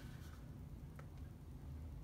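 Quiet room tone with a low steady hum, and one faint click about halfway through.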